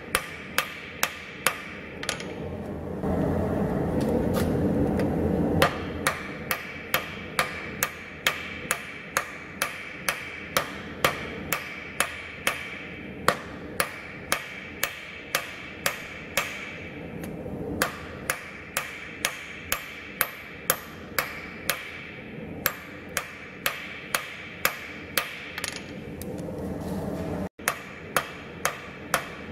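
Hand hammer striking a red-hot steel knife blade on an anvil, forging it out: a steady run of sharp metallic blows at about two a second, with a pause of a few seconds early on.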